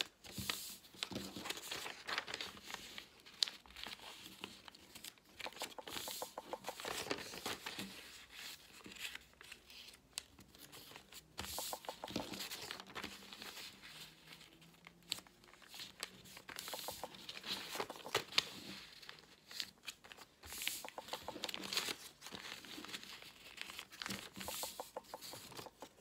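A sheet of coloured A4 paper rustling and crackling as it is folded by hand and the creases are pressed flat against a tabletop, in short, uneven bursts.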